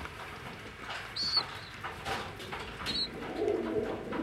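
Racing pigeons cooing: a low, warbling coo starts about three and a half seconds in. Before it come a few short, faint high chirps and light taps.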